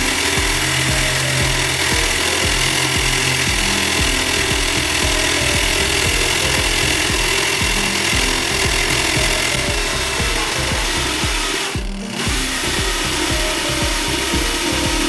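Power drill running with its spinning bit rubbing and grinding against wood, a steady harsh noise, over background music with a regular low beat. The sound dips for a moment about three-quarters of the way through.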